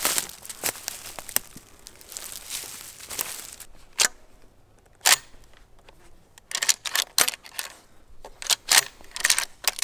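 Pump-action shotgun being unloaded: the action is worked, giving a series of sharp metallic clicks and clacks, most of them in the last few seconds. Rustling from handling comes first.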